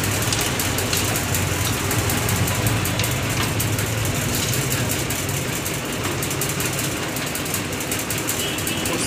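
Steady low mechanical hum and hiss, with fine light clicks of a hand tool working the bolts of a motorcycle engine's crankcase.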